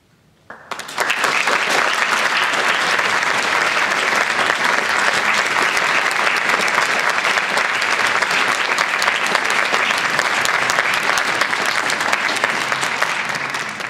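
Audience applauding: dense clapping that breaks out suddenly about half a second in, holds steady, and tapers off near the end.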